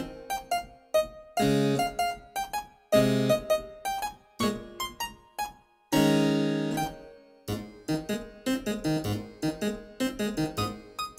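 Background music played on a keyboard instrument: quick, short notes broken by three longer held chords, about a second and a half in, about three seconds in and about six seconds in.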